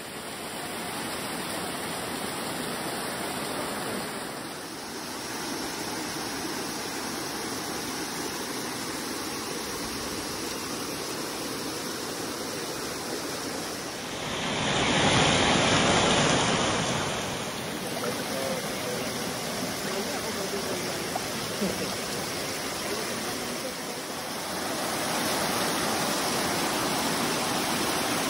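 Waterfall spilling and dripping down a moss-covered rock face into a shallow stream: a steady rush of falling water that swells louder for a few seconds about halfway through.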